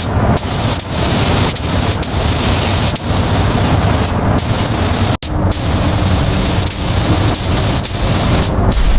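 Steady, loud hiss of spraying, broken off for an instant about halfway through.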